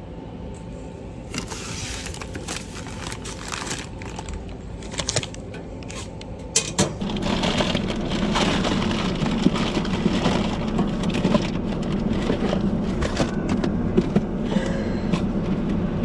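Brown paper parcel mailers rustling and crinkling as they are handled at a parcel locker. About seven seconds in the sound changes to a paper mailer being torn open and crumpled over a steady low hum, with many sharp crackles of paper.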